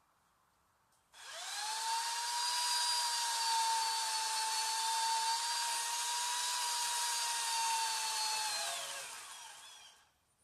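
A power tool's motor starts about a second in, runs at a steady high pitch for about eight seconds, then winds down, its pitch falling as it stops.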